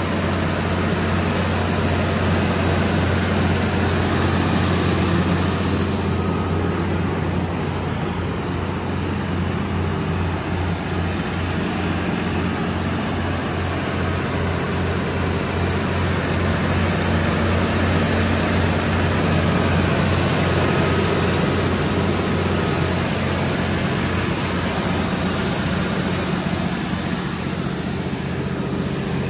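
Cummins KTA19-G4 turbocharged inline-six diesel engine of a 500 kW generator set running steadily at constant speed, a continuous low drone.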